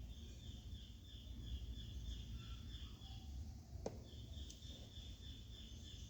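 High chirping from a small animal, a short call repeated about four times a second in two runs with a brief break in the middle. A single click falls in that break, and a faint low rumble runs underneath.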